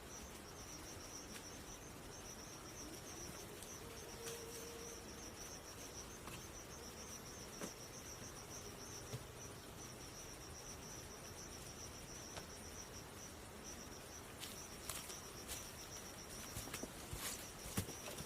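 A steady, high-pitched insect trill, pulsing rapidly and without a break. Scattered light clicks and knocks sound over it, coming more often near the end.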